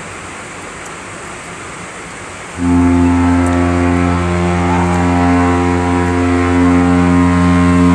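Cruise ship's horn sounding one long, deep, steady blast that starts about two and a half seconds in and holds for about six seconds, over a steady background rush. It is one side of a horn exchange between cruise ships leaving port.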